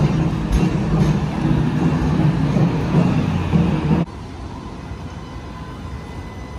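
Alstom Citadis X05 light rail tram running past, a loud rumble with a low steady hum, which cuts off abruptly about four seconds in, leaving a quieter steady background.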